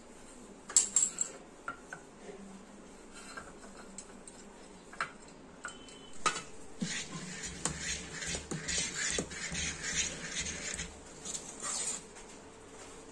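A few sharp metal clinks about a second in, then a steel spoon stirring and scraping thick fermented idli batter in a steel pot from about six seconds in, with frequent clinks against the pot.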